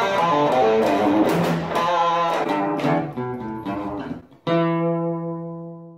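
Guitar music: a run of picked notes, then a single chord struck about four and a half seconds in that rings out and fades.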